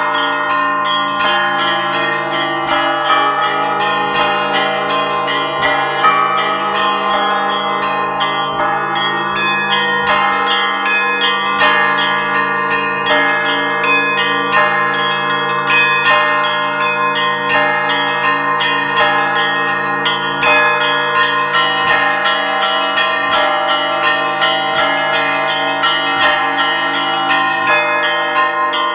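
Orthodox monastery church bells rung in the Russian manner (zvon): small bells struck rapidly, many times a second, in a continuous pattern over the steady hum of larger, lower bells.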